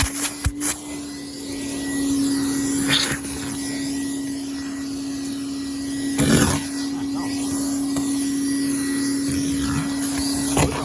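Wet/dry shop vacuum running steadily, its hose held to the outdoor end of an air conditioner's condensate drain line to suck out water and the white sludge clogging it. There are a few brief louder surges of rushing noise.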